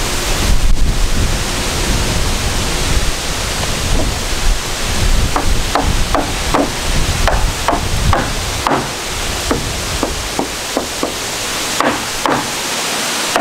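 Wind buffeting the microphone. From about five seconds in, a hammer strikes nails into the wooden rafters in a run of sharp knocks, about two a second.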